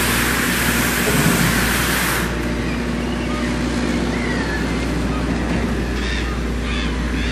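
Bale wrapping machine running steadily, its film ring turning around a waste bale, with a low machine hum. A loud hiss cuts off abruptly about two seconds in, leaving the hum and a few faint high chirps.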